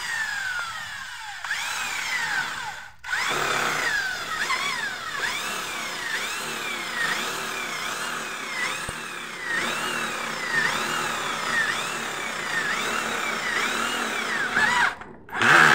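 Corded electric drill running with its bit pressed into a metal frame strip, the motor whine repeatedly dipping and recovering in pitch about once a second. It stops briefly about three seconds in, and a short louder noise comes near the end.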